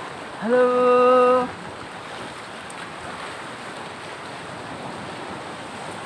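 Steady rush of a fast stream running over rocks beneath a footbridge. A person calls out a long, drawn-out "halo" about half a second in.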